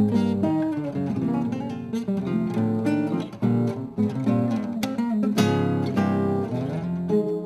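Two classical guitars playing a tango duet: a quick plucked melody over bass notes, with a full chord struck and left ringing about five seconds in.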